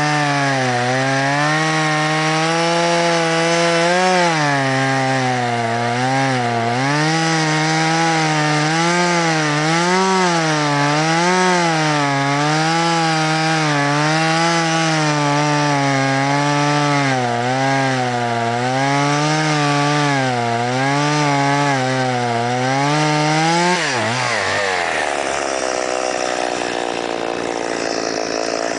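Stihl MS 170 two-stroke chainsaw, a new saw still being broken in, running at high revs while cutting alder logs. The engine pitch keeps rising and dipping as the chain bites into the wood. About 24 seconds in, the engine speed falls sharply and stays lower.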